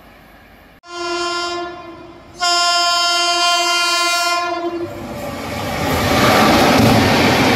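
An approaching train sounds two horn blasts, a short one and then a longer one of about two and a half seconds. Then the rushing noise of the train passing at speed grows loud.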